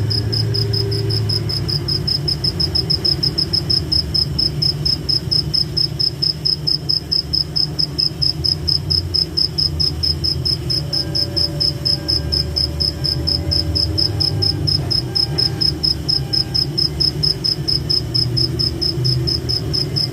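A cricket chirping steadily, a high, evenly pulsed trill at about five pulses a second, over a low steady rumble.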